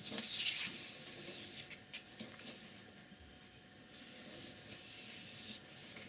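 Flat paintbrush rubbing over paper as acrylic paint is worked into it on the palette: a dry, scratchy swish, strongest in the first second, then fainter, and rising again for the last two seconds.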